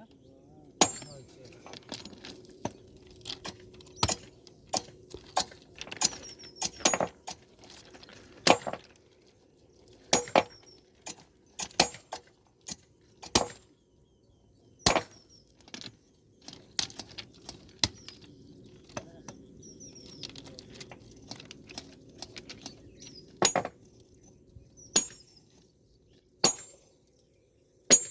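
Irregular hammer blows on steel, some single and some in quick runs of two or three, each with a short metallic ring, as rail-welding work is struck and chipped by hand.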